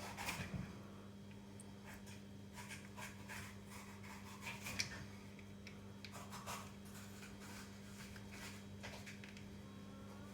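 Faint scattered clicks and rubbing of a Camelbak Eddy+ kids bottle's plastic and silicone lid parts being handled and pulled apart, with one sharper click about halfway through, over a steady low hum.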